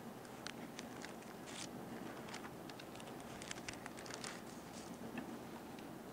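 Thin pages of a Bible being leafed through by hand: faint, scattered papery rustles and ticks.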